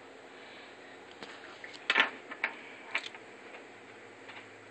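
A handful of sharp clicks and clatters, the loudest about two seconds in, from a small screwdriver and screws being handled against a laptop's exposed keyboard deck and a desk, over steady low room noise.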